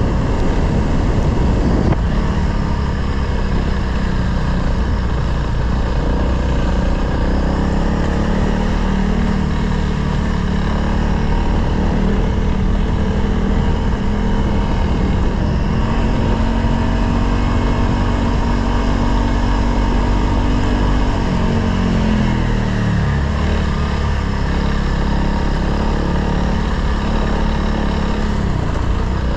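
Honda CRF dual-sport motorcycle engine running steadily under way. Its pitch rises a little past the middle, then drops about three quarters of the way through as the bike slows.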